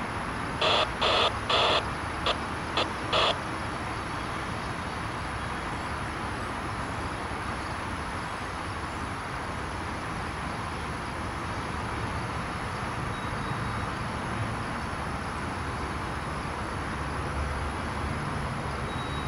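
A horn sounds a quick string of six blasts about a second in, three longer ones and then shorter ones. Under it, the steady rumble of a freight train of tank cars rolling past.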